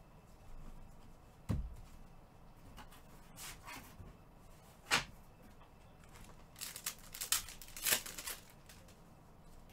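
Trading card packs being torn open and cards handled: short crinkling, tearing bursts of the wrappers, with a dull thump about a second and a half in, a sharp click around five seconds, and a quick flurry of crinkling near the end.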